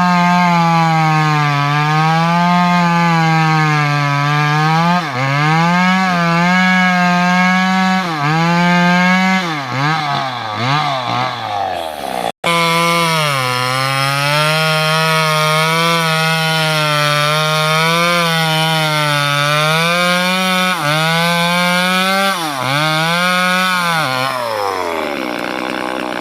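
Top-handle two-stroke chainsaw cutting teak wood at high revs. Its pitch sags and recovers under the load of the cut, with quick revving around ten seconds in and a brief cut-off near the middle. Near the end it winds down toward idle.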